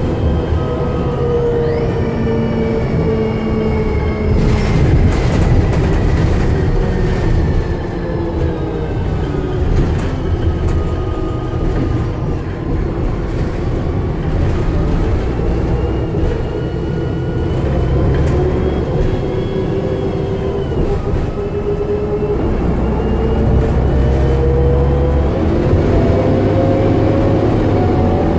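DAF DB250LF double-decker bus heard from inside the lower deck while under way: a heavy engine rumble with a whine that rises near the start, sinks slowly through the middle and climbs again over the last third as the bus picks up speed.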